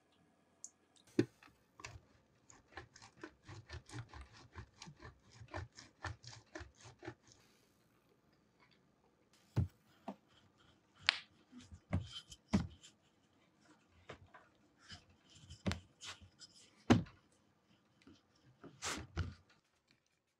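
Kitchen handling sounds of a wooden rolling pin and hands working a sheet of puff pastry on a plastic cutting board: a run of light knocks about three or four a second, then after a pause scattered louder knocks and taps.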